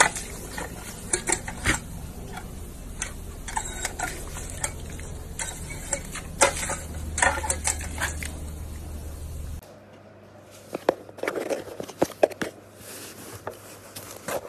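Water spraying and splashing from a paw-activated dog water fountain as a German Shepherd presses the pedal and snaps at the jet, with many quick splashes and clicks over a steady low hum. About ten seconds in this gives way to quieter scratching and rustling of a small animal in a cardboard box.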